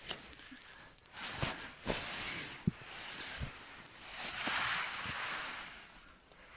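Synthetic sleeping-bag and hammock fabric rustling as it is handled and shifted, in several swells, with a few soft knocks.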